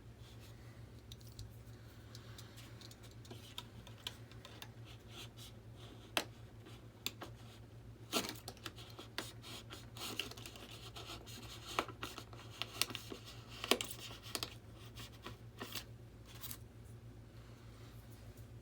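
A knife blade shaving and scraping material away in short, irregular scratches with a few sharper clicks, trimming a model jet's part so a ring will fit.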